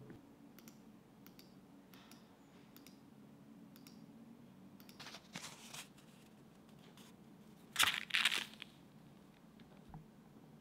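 Paper dollar bills rustling and crinkling as they are handled and laid on a desk: a short burst about five seconds in and a louder double burst about eight seconds in, after a few faint clicks.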